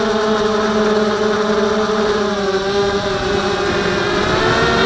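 Blade 200 QX quadcopter's four motors and propellers whining close to the onboard camera, several pitches together that dip about two seconds in and rise near the end as the throttle changes, over a low rushing noise.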